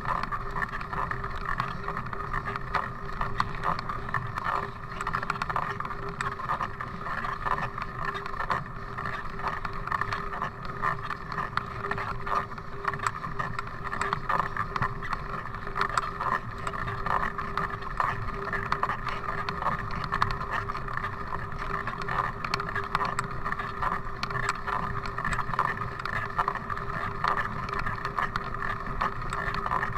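Mountain bike ridden uphill over rough grass, rattling and clicking with many small knocks over a constant rolling and wind noise, with a steady hum underneath.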